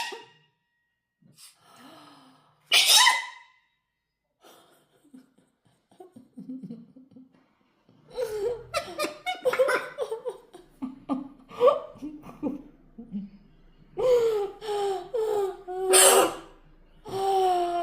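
A short sneeze about three seconds in, then from about eight seconds a long run of laughter with gasping breaths.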